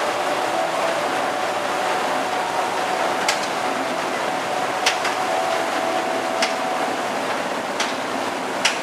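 A steady rushing noise with five sharp clicks or taps about one and a half seconds apart, starting a little over three seconds in. A faint steady tone sits under the noise for most of the first seven seconds.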